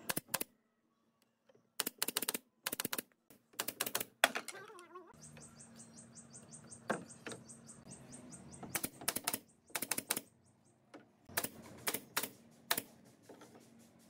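Pneumatic brad nailer firing nails into pine slats in quick bursts of several sharp shots, with short pauses between bursts. A faint low hum joins about five seconds in.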